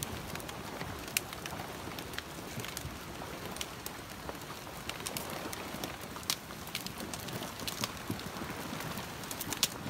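Debris-laden flash flood front: a mass of logs and branches pushed down a dry wash, crackling and clacking with scattered sharp snaps of wood over a steady rush.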